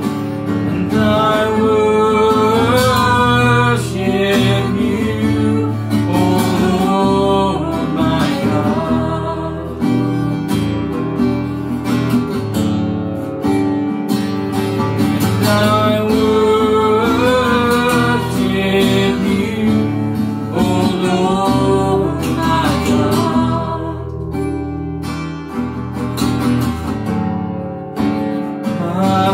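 Acoustic guitar strummed steadily under a singing voice in a slow worship song, the melody rising and falling in long held notes.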